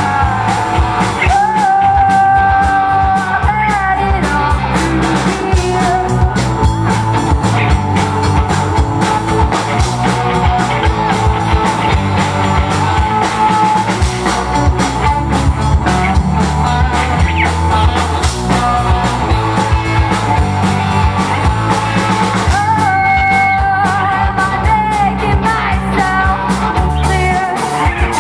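Live rock band playing, with drums, bass and a singer holding long notes about a second in and again near the end.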